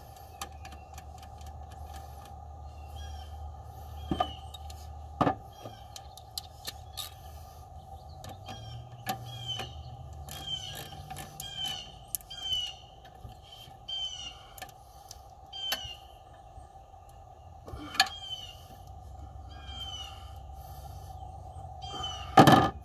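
A bird chirps over and over, a short note about once a second, over a steady hum. A few sharp clicks and knocks of hand tools on the engine break in, the loudest near the end.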